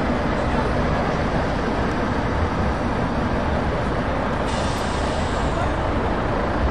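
Volvo FH540 tractor unit's 13-litre six-cylinder diesel running as the truck rolls slowly past at low speed, a steady sound heaviest in the low end. A higher hiss joins about four and a half seconds in.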